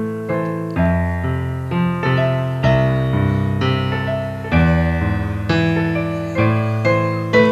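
Solo digital piano (ORLA CDP-1) playing chords, each struck about once a second and left to ring and fade, with no voice over it.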